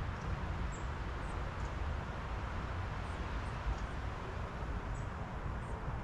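Steady wind: a fluttering low rumble of wind on the microphone under a broad hiss of wind through trees, with a few faint, short high bird chirps.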